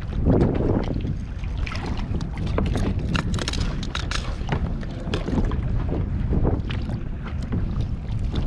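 Wind rumbling on the microphone out on a kayak, with a run of small clicks and knocks from fishing tackle being handled while a line is rigged and baited, thickest in the middle few seconds.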